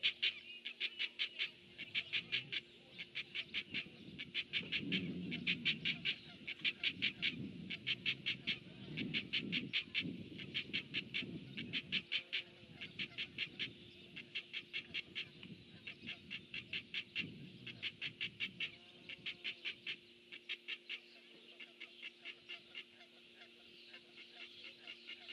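An animal calling in fast pulsed trills, each about a second long, repeated again and again with short gaps.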